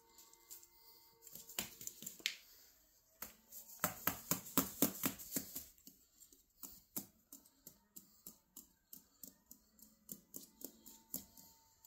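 Quick, irregular clicks and taps, thickest about four to five seconds in, with a few scattered ones before and after.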